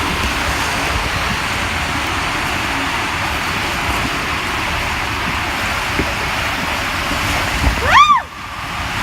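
Steady rushing water noise. A little before the end comes one short, loud squeal that rises and falls in pitch.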